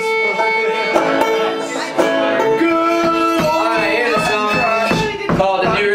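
A string band plays: fiddle, banjo and upright bass. Long bowed fiddle notes come first, then quicker picked banjo notes over plucked bass.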